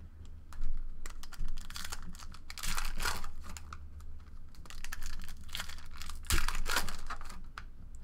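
Foil trading-card packs crinkling and cards clicking against each other and the tabletop as they are handled and stacked, in irregular taps and rustles with a sharper click about six seconds in.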